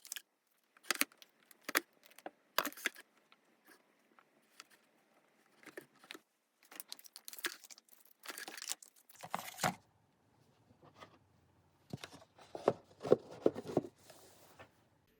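Paper and plastic packaging rustling, crinkling and tearing in short bursts as gifts are unwrapped, with a few light clicks and knocks.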